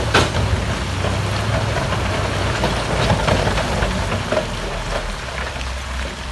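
Heavy diesel earthmoving machine running steadily, with scattered knocks and a sharp clank just after the start.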